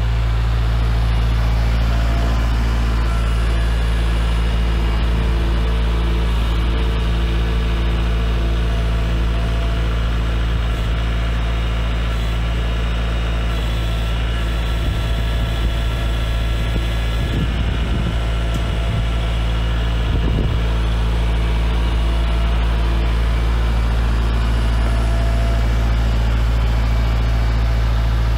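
A vehicle engine running steadily at idle, a constant low hum throughout, with brief small changes around two-thirds of the way in.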